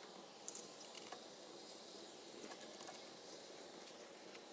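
Faint, light metallic clicks and taps of bolts being set into a 42RE transmission's valve body by hand: a few scattered clicks about half a second and one second in, and a small cluster near three seconds, over a steady low hiss.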